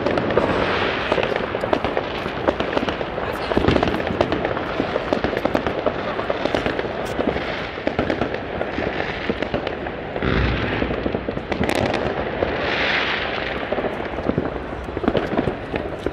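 Many New Year fireworks going off at once: continuous crackling and popping, with heavier booms about four seconds in and again about ten seconds in, and some hissing bursts shortly after.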